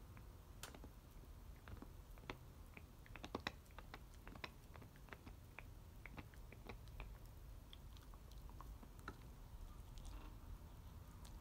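American Cocker Spaniel chewing a toy bone: faint, irregular clicks and crunches of teeth on the bone, busiest a few seconds in.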